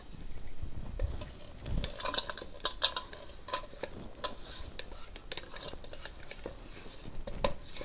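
Steel mixer-grinder jar being tapped and knocked to empty ground flaxseed onto a brass plate: a scattered run of light metallic clinks and taps.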